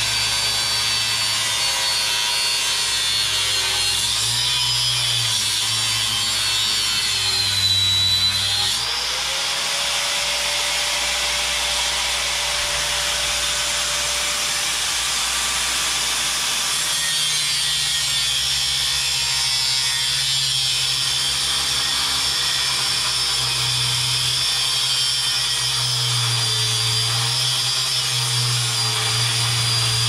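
Milwaukee 4.5-inch angle grinder with a cutoff wheel cutting through the steel shell of an LG refrigerator compressor just above its weld, a continuous grinding noise. The motor's high whine wavers in pitch as the wheel bites and eases off, dropping about eight seconds in.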